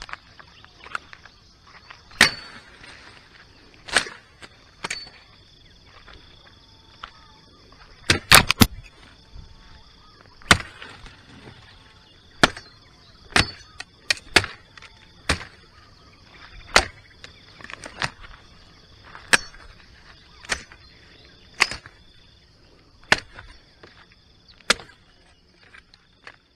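Machete blade chopping through branches and brush: sharp single strikes at roughly one a second, with a quick flurry of three or four blows about eight seconds in. A steady faint high drone runs underneath.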